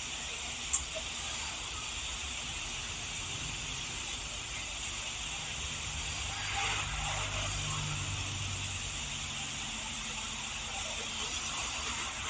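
Steady hiss of recording background noise, with a faint low hum around the middle and a few faint clicks.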